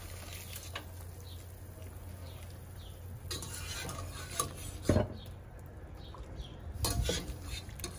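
A wire spider skimmer clinking and knocking against a metal stockpot and a ceramic bowl as boiled chicken skins are scooped out and stirred in water. A few sharp clinks, the clearest about five and seven seconds in, over a steady low hum.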